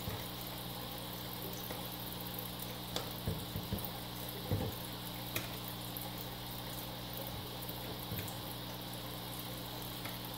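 Steady low hum and hiss, with a few soft plastic taps and knocks as a battery pack is pushed and wiggled into the battery bay of a Neato BotVac Connected robot vacuum, not yet seated.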